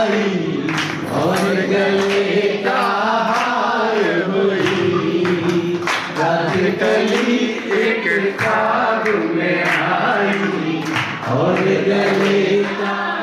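Men singing a song together, one voice leading through a microphone and loudspeaker, in long held phrases, with hand-clapping along.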